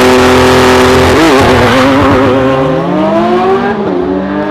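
Car engine, loud, running at a steady pitch that wavers about a second in, then revving up over a couple of seconds, dipping briefly near the end and climbing again.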